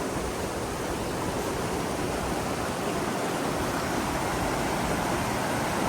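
Steady, even rushing noise across the whole range, without speech or distinct events.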